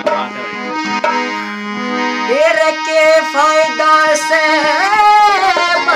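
Harmonium playing sustained reed notes and chords; about two and a half seconds in, a man's voice joins, singing long held notes that glide between pitches over the harmonium.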